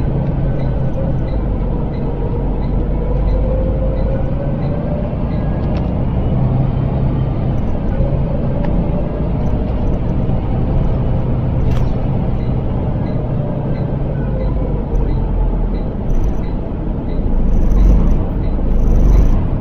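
Volvo B7L single-deck bus heard from inside the passenger saloon while driving: steady engine and road rumble with a faint whine that drifts in pitch with speed. A faint, even ticking about twice a second runs underneath.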